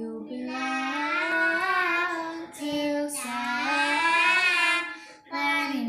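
A young girl singing in long, drawn-out notes, with two brief breaks for breath.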